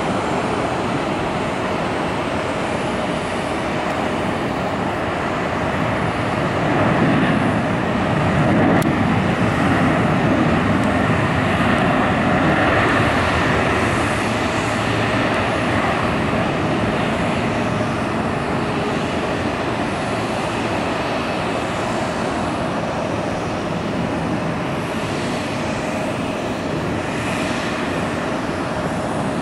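British Airways Boeing 777 landing and rolling out: a steady rush of jet engine noise that swells louder from about seven to thirteen seconds in, the reverse thrust of the landing rollout, then eases off.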